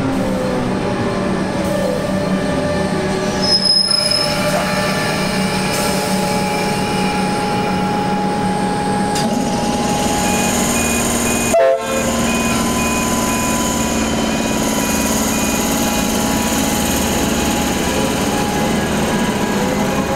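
Comeng electric multiple unit train running past along the platform: steady rolling and traction-motor whine, with tones that glide in pitch, and a brief high squeal from the wheels about four seconds in.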